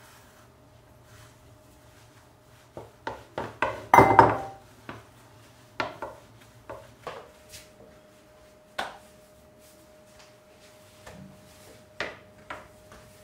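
Thin wooden rolling pin knocking and rolling against a wooden pastry board as dough is rolled out. A quick run of clattering knocks comes about three to five seconds in, the loudest around four seconds, followed by scattered single knocks.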